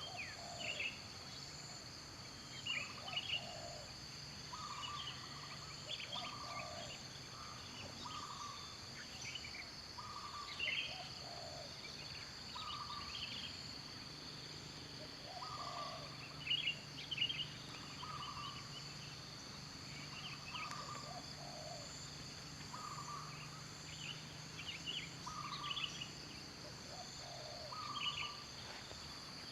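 Outdoor nature ambience: a steady high-pitched insect drone, with a bird giving short calls that repeat every second or two.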